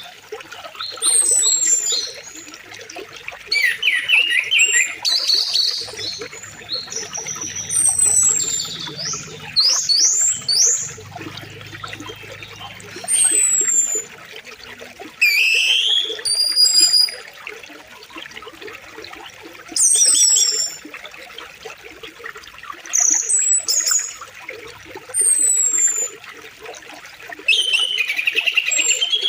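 Songbirds singing in short phrases of quick falling whistles and chirps, repeating every two to three seconds, over a faint steady rush of flowing river water.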